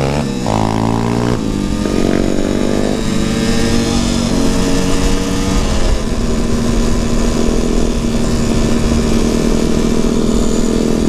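Motorcycle engine pulling up through the gears: its pitch rises and drops back at each of several upshifts over the first five or six seconds, then holds steady at cruising speed.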